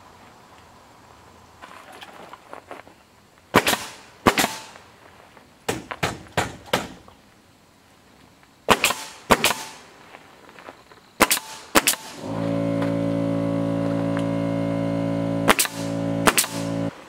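Pneumatic nail gun firing nails into barn-board trim: about a dozen sharp shots, singly and in quick pairs. About twelve seconds in, an air compressor starts and runs with a steady hum under the last two shots.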